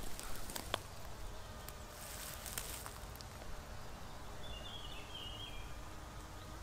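Outdoor garden ambience with a steady low rumble of wind on the microphone. In the first few seconds, small sharp snaps and rustles of a white campion plant being handled and picked apart by hand, then a brief high chirp near the middle.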